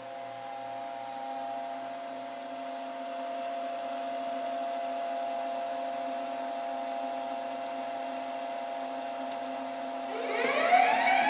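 Steady hum with several held tones, then about ten seconds in the Scott Turbon PMS3 portable mixer's motor starts on its variable-frequency drive, its whine rising in pitch as it ramps up to speed.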